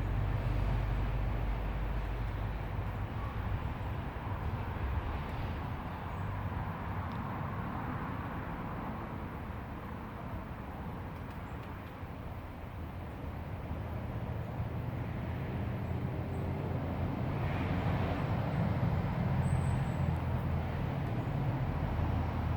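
Crumlin River rushing through a rocky glen: a steady water rush with a deep, uneven low rumble that eases off around the middle and swells again in the second half.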